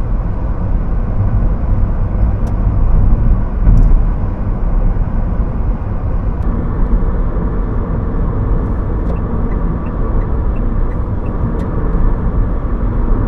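Steady low road and engine rumble of a car being driven, heard from inside the cabin, with a few faint light ticks in the second half.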